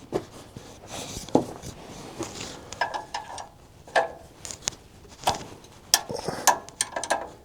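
Irregular metallic clinks and knocks, a dozen or so, of hand tools and metal parts being handled during engine maintenance.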